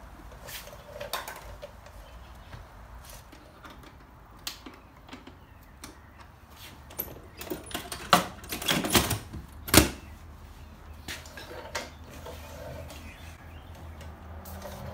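Handling noises from wiping down a motorcycle with a rag: soft rubbing over the paint and chrome, scattered light clicks, and a cluster of louder knocks and scrapes about eight to ten seconds in.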